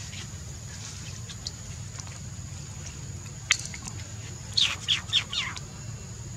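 Four quick high chirping calls from a small animal, each falling in pitch, over a steady high whine and a low background hum. A single sharp click comes about a second before the calls.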